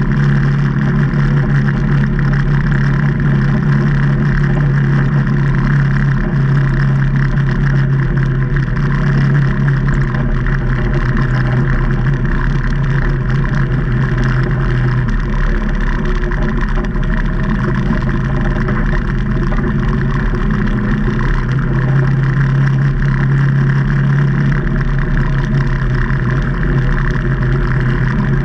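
2019 Can-Am Maverick Trail 800 side-by-side's Rotax V-twin engine running steadily while driving, its note easing off about halfway through and building again a few seconds later.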